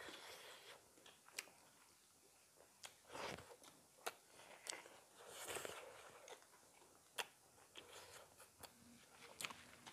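Faint eating sounds: chewing of rice and chicken curry eaten by hand, with soft wet mouth noises and scattered sharp clicks.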